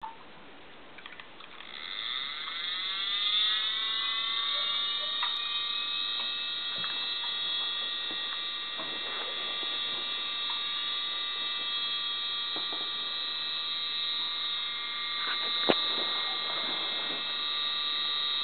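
Fan siren winding up, its several tones rising together in pitch over about three seconds, then holding a steady tone: the alert signal. A sharp click sounds a few seconds before the end.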